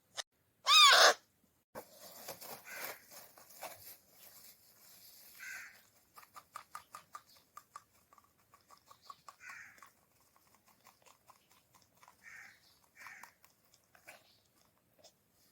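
Ringneck parrot chick calling: one loud, shrill screech about a second in, then scattered short rasping calls and a quick run of clicking notes a few seconds later.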